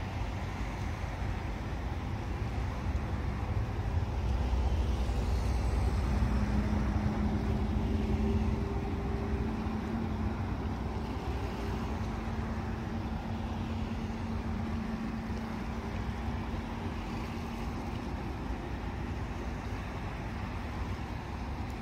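Steady low outdoor rumble with a passing engine's hum that comes in about four seconds in, holds a steady pitch, and fades out after about eighteen seconds.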